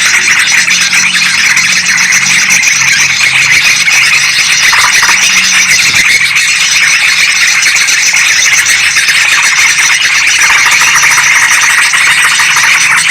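Yellow-vented bulbuls and sooty-headed bulbuls calling together in a loud, dense, continuous chatter of rapid, overlapping notes. This is a noisy bulbul bird-lure recording.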